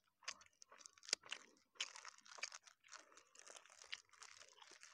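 Banana-leaf wrapper of a fermented-beef parcel being peeled open by hand: faint crinkling and crackling of the leaf with small irregular clicks.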